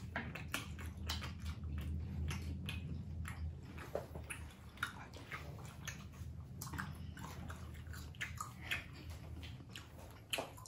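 Close-miked eating: biting and chewing squid ramen with bean sprouts, heard as many short, irregular wet clicks and smacks. A low steady hum underneath stops about nine and a half seconds in.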